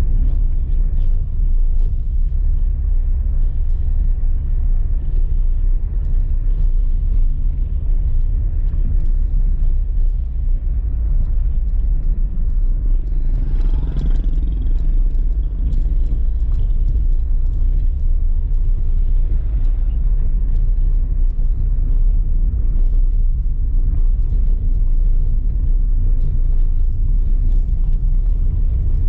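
A car driving over stone-paved streets: a steady low rumble of tyre and road noise, with a brief louder swell about halfway through.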